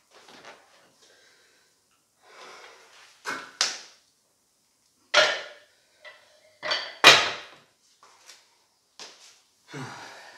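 PowerBlock adjustable dumbbells being set down and handled on the floor. There is a series of sharp knocks and clanks, loudest about five and seven seconds in.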